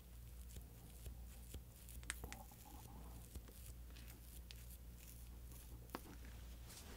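Faint scattered clicks and scrapes of a small spoon working in a small paper cup of Popin Cookin candy-kit food, over a faint low steady hum.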